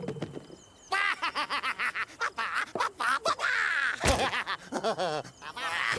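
Cartoon Rabbid creatures snickering and giggling in quick, choppy bursts starting about a second in, with a short thump about four seconds in.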